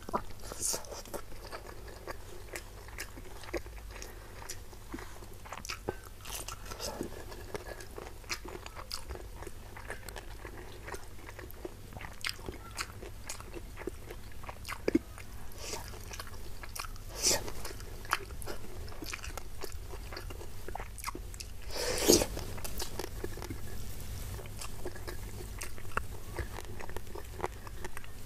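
Close-miked chewing of rice with crunchy bits of spicy stir-fried salted fish: many small, scattered crunches and wet mouth clicks, with one louder crunch about three-quarters of the way through.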